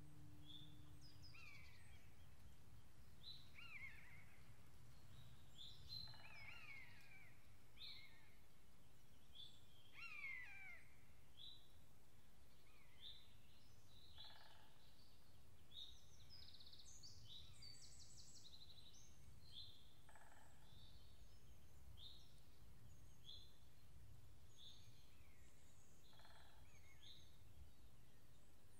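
Faint birdsong: several small birds chirping and giving short whistles that glide downward, scattered through the whole stretch, over a low steady background noise.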